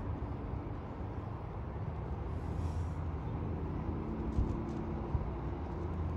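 Outdoor ambience: a steady low rumble with no distinct event, and a faint hum between about three and five seconds in.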